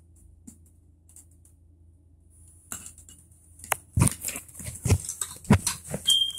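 Handling noise: knocks and rustling as the recording device is moved about, with small clicks of plastic toy pieces, starting a little before halfway. A brief high squeak near the end.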